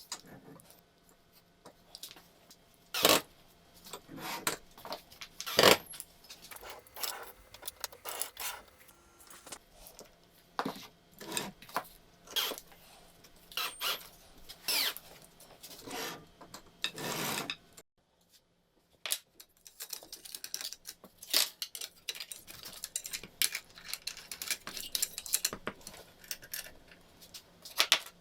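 Small metal parts and hand tools clinking, tapping and rattling as they are handled, with two louder knocks in the first six seconds and a brief gap about two-thirds through.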